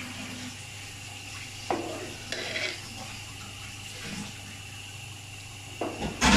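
Metal ladle stirring a large pot of thick, cooking daleem: wet, sloppy churning of the stew, with a few knocks of the ladle against the pot, the loudest near the end.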